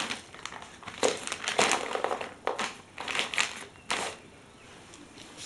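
Chinese Shar Pei chewing a crunchy snack: a run of irregular crunches for about four seconds, then quieter.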